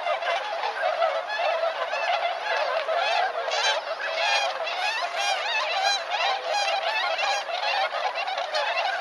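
A large flock of whooper swans calling, many honks overlapping continuously.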